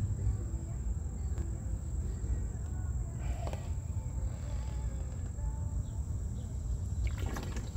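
Steady outdoor background: a low rumble with a constant thin high-pitched tone over it, and a few faint handling sounds.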